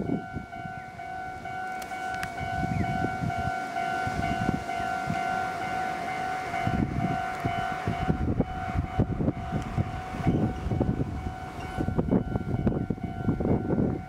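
Japanese level-crossing alarm on the Meitetsu Kowa Line ringing its electronic 'kan-kan' bell, a steady bright tone. From about halfway, the low rumble of a passing train rises beneath it.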